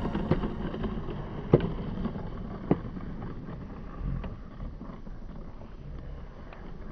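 Handheld camera picking up low outdoor rumble and wind-like noise, with a few sharp knocks; the two loudest come about a second and a half in and just under three seconds in.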